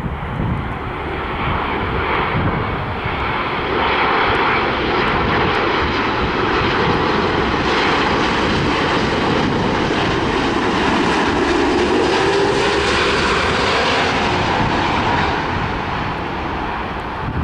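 Boeing 787-9 jet engines on landing approach, passing close by: a steady roar and hiss that swells as the airliner nears, is loudest and brightest in the middle, and eases a little near the end as it moves off toward the runway.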